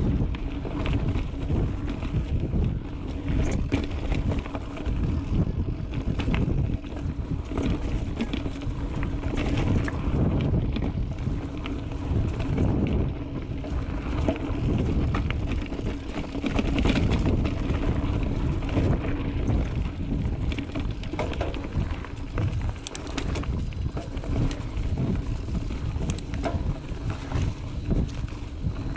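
Mountain bike riding over dirt singletrack: wind noise on the microphone and tyres rolling on the ground, with frequent clicks and rattles from the bike over bumps.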